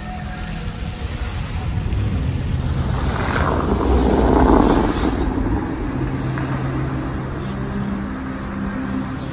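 Steady low vehicle rumble, with a rushing swell that builds about three seconds in and fades about two seconds later.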